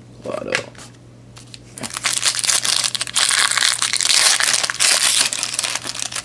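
Metallic foil wrapper of a Topps Chrome baseball card pack being torn open and crinkled by hand: a dense crackling rustle that starts about two seconds in.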